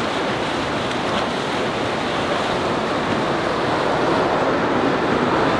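Steady rushing of water churned up by a large Mangusta 110 motor yacht passing close by, with wind noise on the microphone; it swells slightly near the end.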